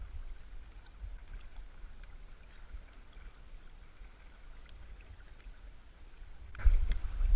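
Shallow river current running over a gravel riffle, under a low rumble of wind on the microphone; about six and a half seconds in the rumble suddenly becomes much louder.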